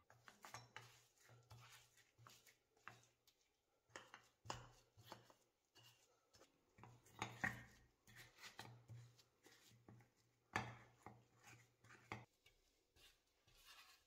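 Faint, irregular clicks and knocks, with a few louder knocks about a third, half and three-quarters of the way through.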